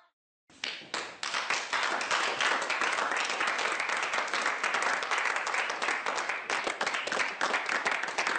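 Crowd applauding: many hands clapping in a dense, steady patter that starts abruptly about half a second in and cuts off at the end.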